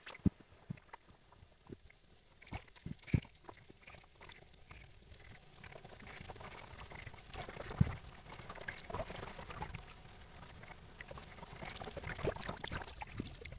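Shallow seawater lapping and sloshing close to the microphone, with scattered sharp clicks and knocks; the splashing gets busier from about halfway through.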